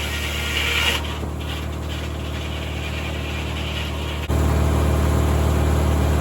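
1950 Corley circular sawmill, driven by a tractor, running with a steady low drone. A higher, noisier sawing sound stops about a second in, and about four seconds in the machinery suddenly gets louder.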